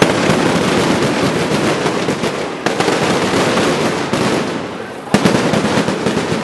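Two sharp explosive bangs, one right at the start and one about five seconds in, over a dense din of crackling pops and shouting, as riot-control munitions are fired into a street protest amid clouds of tear-gas smoke.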